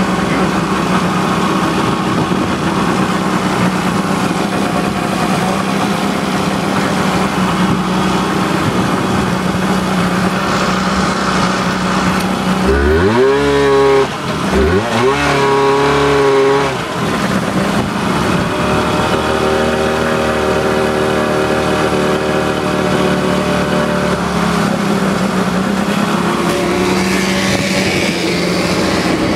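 Motorboat engines running at speed over a hiss of wind and water spray. About halfway through, an engine revs up twice, its pitch rising steeply each time before settling into a steady drone.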